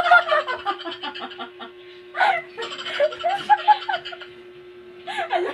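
People laughing in several bursts, with a steady hum underneath.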